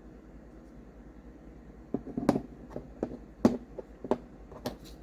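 Small metal tools and knife hardware being handled while Torx drivers are tried on a folding knife's pivot screw: a quiet start, then a string of sharp, irregular clicks and taps from about two seconds in.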